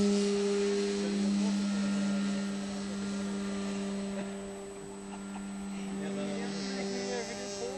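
Electric RC model airplane's motor and propeller in flight, giving a steady humming tone that slowly grows fainter.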